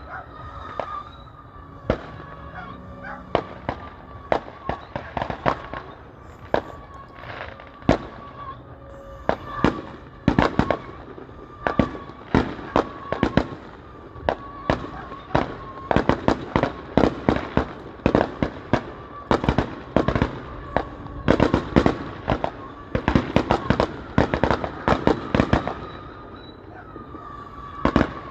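Fireworks display: a long series of sharp bangs going off in quick succession, sparse at first, becoming a dense volley in the middle, then thinning out near the end.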